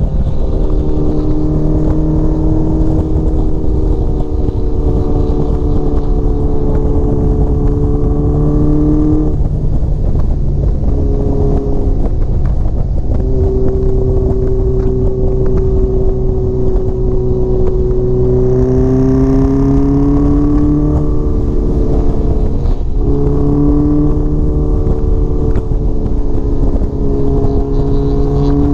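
Honda CBX750 cafe racer's inline-four engine running at road speed on a country ride. The note holds steady, then breaks and shifts pitch a few times at gear changes. Heavy wind rush on the microphone sits underneath.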